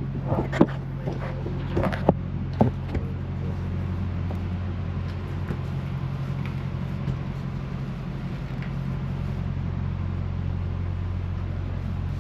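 Semi-truck diesel engine idling with a steady low hum. A few sharp clicks or knocks in the first three seconds.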